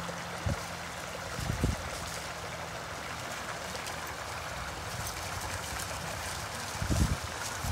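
A woodland brook running and trickling steadily, with a few short low thumps, the loudest near the end.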